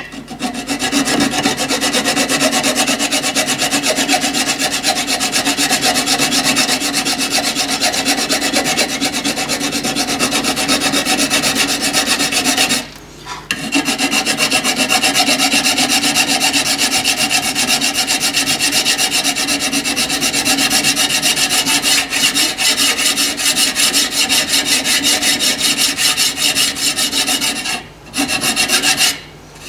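Flat hand file draw-filing aluminium bars and countersunk aluminium rivet heads flush, a continuous scraping of steady strokes. It pauses briefly about thirteen seconds in and again near the end.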